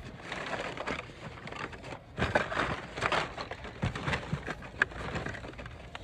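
Hot Wheels blister cards rustling and clacking against each other as a hand rummages through a cardboard bin of them, a jumble of crinkles and small clicks that is loudest a couple of seconds in.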